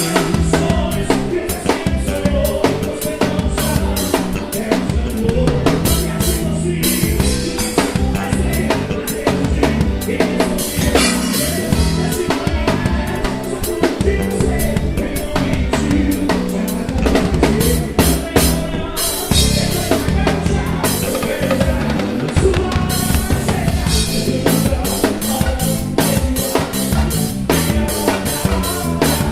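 A live band playing, led by a drum kit keeping a steady beat on bass drum, snare and cymbals, with bass and other instruments held underneath.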